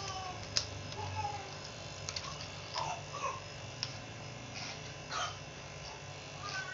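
Electric hair clippers buzzing steadily as they are run over a closely cropped scalp, with scattered light clicks.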